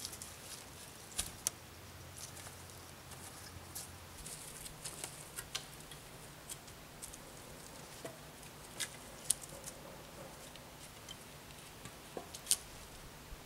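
Irregular light clicks, crackles and a few sharper snaps of dry sticks and bark being handled or stepped on, with no steady rhythm.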